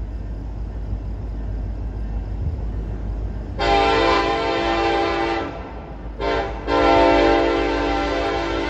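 Diesel freight locomotive's multi-tone air horn sounding over a steady low rumble: a long blast, a short one and another long one. The long-short-long ending of the grade-crossing signal, from a CN train still out of sight on its approach.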